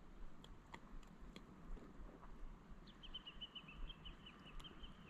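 Faint bird call: a quick run of short, high chirps starting about three seconds in. Under it are a few soft clicks from a spinning reel being wound.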